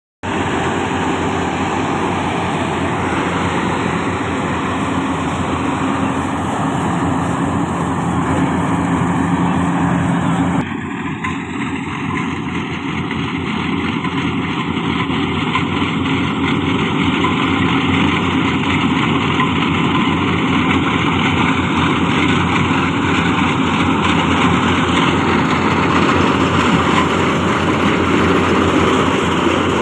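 Yanmar YH700 full-feed combine harvester running steadily, its engine and machinery making a continuous drone. The sound changes abruptly about ten seconds in.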